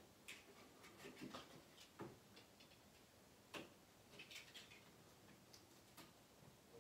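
Faint, scattered clicks and scratchy ticks of a snap-off utility knife trimming wallpaper against a straight edge.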